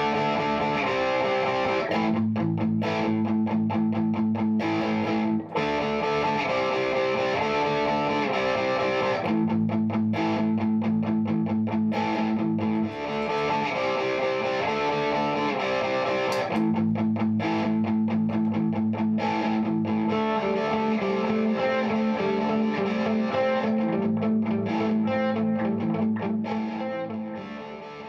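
Background music: a guitar-led instrumental with held low notes, fading out near the end.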